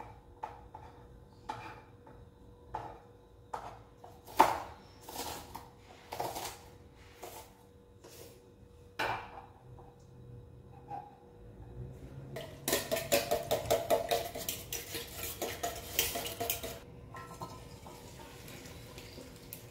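Knife chopping vegetables on a cutting board in scattered single strokes. About two-thirds of the way in, a utensil clinks fast and steadily against a stainless-steel cup for about four seconds as eggs are beaten.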